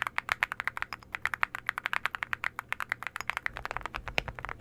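Typing on a mechanical keyboard fitted with alumina ceramic keycaps: a fast, steady run of key clacks, about ten a second, with a bright, clicky sound.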